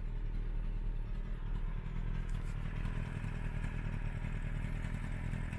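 Old sidecar motorcycle's engine idling close by in stopped traffic, a steady low rumble.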